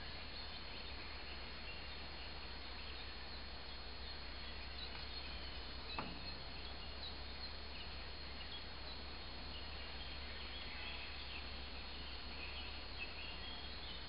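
Woodland ambience: a steady hiss with faint scattered bird chirps and a thin, steady high tone, and a single click about six seconds in.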